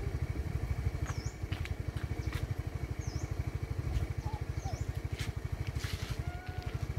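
Motor scooter engine idling with a steady, fast low pulse, with a few light clicks and knocks as a passenger climbs onto the back.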